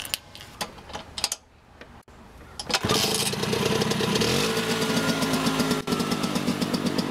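A Vespa Primavera scooter's two-stroke single-cylinder engine started from cold: a few clicks and rattles, then it catches about three seconds in and settles into a steady idle with a fast, even pulse, its pitch rising slightly a little later.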